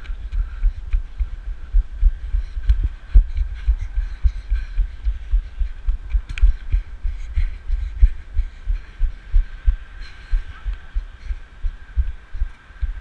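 Wind buffeting the microphone of a GoPro Hero 1 in an open skeleton housing: a loud, uneven low rumble of thumps, several a second, over a faint steady high tone.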